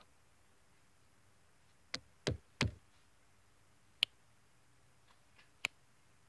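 Battery lantern's push-button switch being clicked, with five sharp clicks and knocks spaced unevenly and the two heaviest close together about two seconds in. The light is misbehaving, flickering on and off and not switching off at the button.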